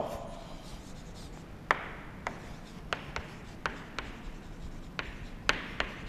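Chalk writing on a chalkboard: faint scratching with about eight sharp, irregularly spaced taps from a little under two seconds in.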